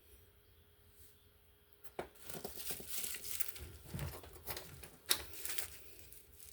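Crinkling and rustling of packaging being handled, starting about two seconds in and going on in irregular crackles until near the end.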